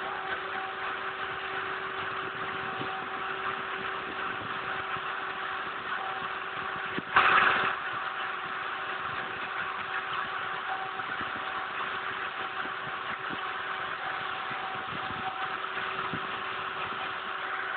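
Home-made CNC machine running while etching a mirror: a steady motor hum with a hiss over it. About seven seconds in there is a brief, louder burst of noise.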